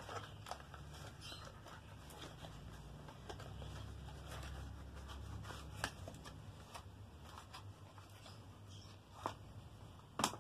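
Cardboard box and plastic packaging handled by hand as a small plastic night light is slid out: scattered rustles and light clicks, with a sharper knock near the end.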